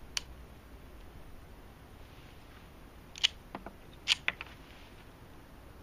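Sharp metallic clicks of a Colt 1911 pistol being worked by hand, with no shot fired: one click just after the start, then a cluster of five or so clicks between about three and four and a half seconds in.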